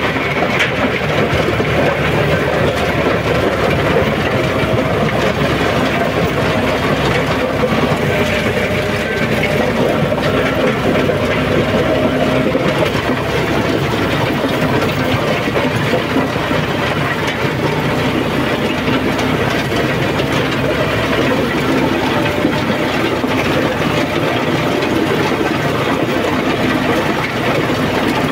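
John Deere 5210 tractor's three-cylinder diesel engine running steadily under load, driving a rotavator that churns through dry soil.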